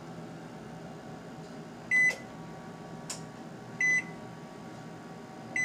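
Microwave oven keypad beeping as the cook time is set: three short high beeps a couple of seconds apart, over a low steady hum, with a single click between the first two beeps.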